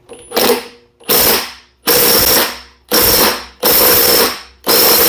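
Briggs & Stratton check-ball starter clutch ratcheting as it is turned by hand, in a series of strokes about once a second. The freely ratcheting clutch shows the freshly reassembled check balls are working.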